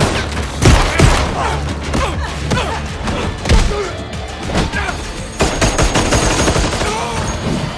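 Gunfire from a film shootout: many shots in quick succession, loudest about a second in.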